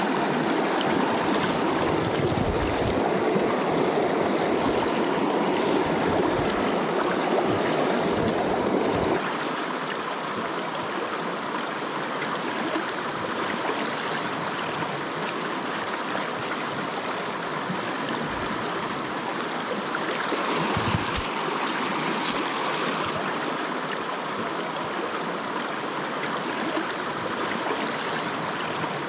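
Stream water rushing steadily. About a third of the way in the deeper part of the rush drops away suddenly, and there are a few brief low thumps.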